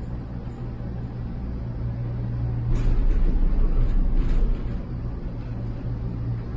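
Gondola cable car cabin running along its haul rope, heard from inside: a steady low hum, with a louder rumble for about two seconds in the middle.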